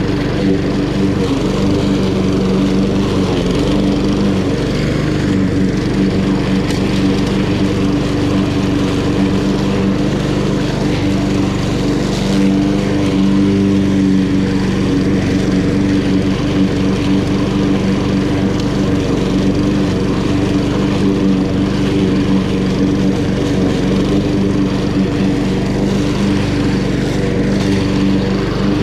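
Honda GCV170 single-cylinder engine of a walk-behind lawn mower running steadily at a constant speed.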